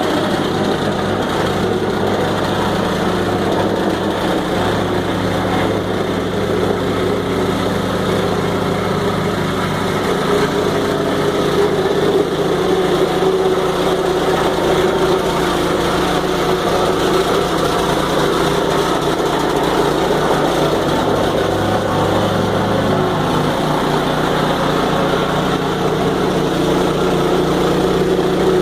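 Small engine running steadily at a constant speed, with a fixed hum and no revving.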